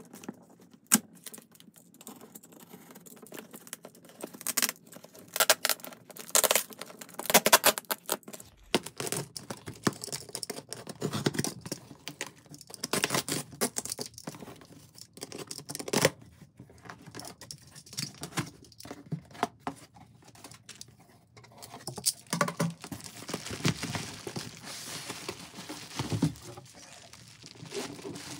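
A utility knife slicing through packing tape on a cardboard box, with tape tearing and cardboard scraping in irregular bursts. Near the end the flaps are opened and bubble wrap crinkles as it is handled.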